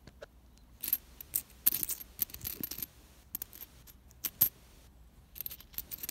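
US Lincoln cents clinking against one another as fingers push and sift through a pile of them on cloth, in irregular clusters of sharp metallic clicks.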